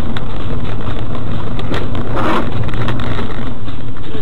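Car driving on a wet road, heard from a dashcam inside the cabin: a steady engine and tyre rumble, with a short hiss about two seconds in.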